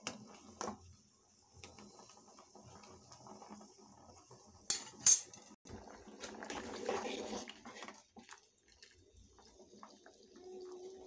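Metal spoon clinking and scraping against a thin aluminium pot while stirring and scooping boiling pasta. Two sharp clinks about five seconds in are the loudest, followed by a couple of seconds of stirring and sloshing. A steady faint hiss runs underneath.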